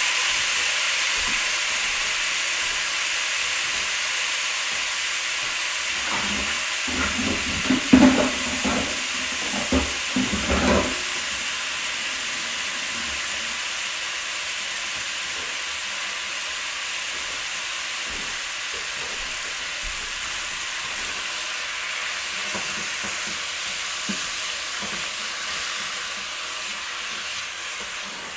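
Steak bites sizzling in olive oil in a hot non-stick pan: a steady frying hiss that slowly eases. About six to eleven seconds in, a few knocks and clatters break in, the loudest moments.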